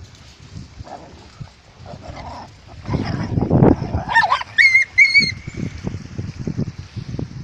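Puppies play-fighting: rough low noises throughout, the loudest about three seconds in, and about four seconds in a high-pitched whine from one puppy that rises and is then held, wavering, for about a second.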